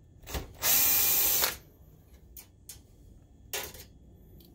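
Cordless drill-driver running for about a second, driving out a screw from the projector's sheet-metal frame. A shorter burst of noise follows about three and a half seconds in.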